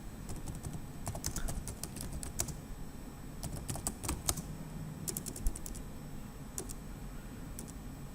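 Irregular clicking of keys, typing on a computer keyboard, over a low steady room hum.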